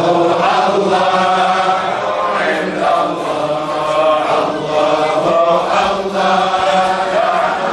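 Arabic religious chanting, a qasida in praise of God, sung in long melodic phrases.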